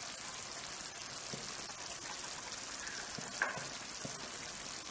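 Chicken pieces and sauce sizzling gently in a clay tajine over low heat: a steady soft hiss with scattered small crackles. One light tap about three and a half seconds in.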